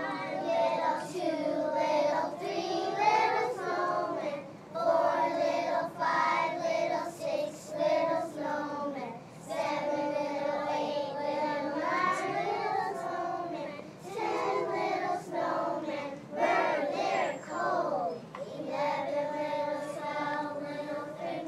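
A group of kindergarten children singing a Christmas song together in unison, in phrases of a few seconds with brief pauses between them.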